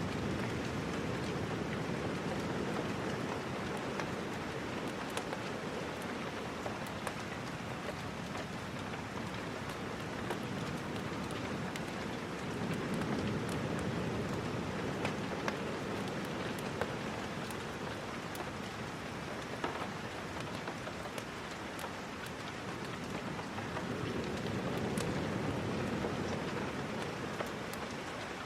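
Steady rain falling, with scattered sharp crackles like a wood fire over the even hiss. A low rumble swells and fades about every twelve seconds.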